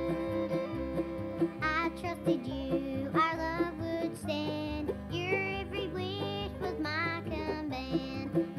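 Acoustic bluegrass-style family-band music played back from a cassette tape: guitar over a steady bass, with a wavering melody line that comes in about two seconds in.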